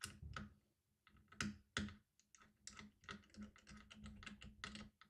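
Faint, irregular small clicks and ticks of a precision screwdriver and the tiny M.2 retention screw as an NVMe SSD is screwed down to the motherboard.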